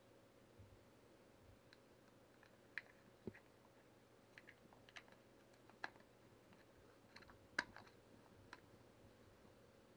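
Faint, irregular clicks and taps of plastic airsoft rifle parts, a buffer tube and stock, being handled and fitted together, with the sharpest click about seven and a half seconds in.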